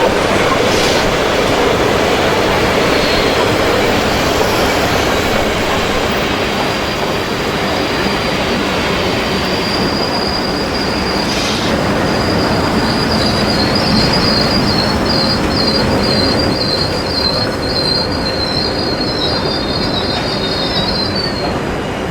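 Railway train running with a steady rumble and a high wheel squeal that sets in a few seconds in, grows stronger and wavers into several tones near the end before it stops.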